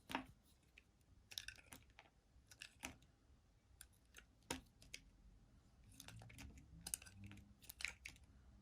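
Blade cutting into a bar of soap: faint, irregular crisp clicks and small crunches, some in quick clusters.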